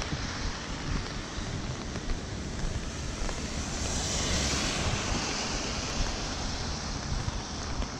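Steady rain on an umbrella and wet pavement, with wind buffeting the microphone in a low rumble. About four seconds in, a car's tyres hiss past on the wet road.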